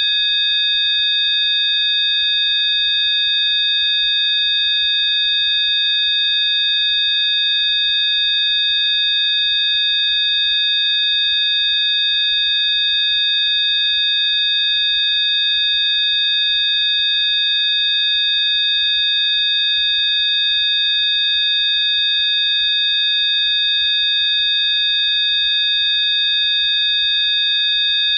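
Rife frequency track: several high, pure electronic sine tones sounding together, held steady and unchanging.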